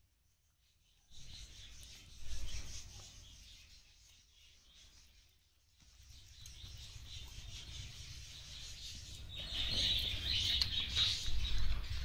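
Small birds chirping, busier and louder from about ten seconds in, over low handling rumble.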